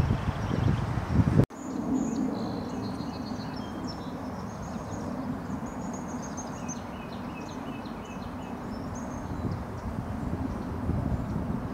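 Outdoor ambience. A low rumbling on the microphone cuts off abruptly about a second and a half in, leaving a steadier, quieter background rumble with small songbirds chirping and twittering high above it.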